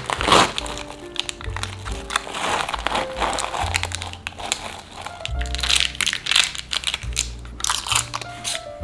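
Baking paper and cling film crinkling in quick crackles as hands peel them back and lift a slab of set nougat, over background music.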